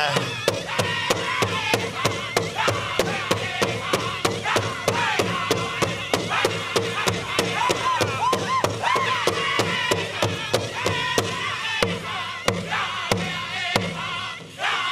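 Powwow drum group playing a chicken dance song: a big powwow drum struck steadily about three times a second under high-pitched sung notes that waver and bend. The song stops just before the end.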